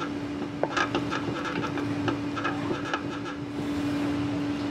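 Restaurant kitchen noise: a steady droning hum with scattered clinks and clatter of cooking work.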